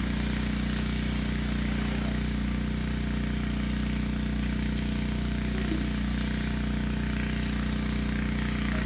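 Steady low drone of a running vehicle engine, even in pitch throughout, with a faint brief sound about six seconds in.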